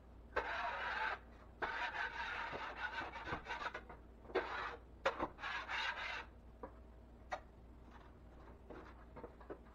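A drywall knife scraping over a drywall ceiling in repeated rough strokes, knocking down dried bumps of old mud before taping and coating. The strokes die down after about six seconds, leaving a few light knocks.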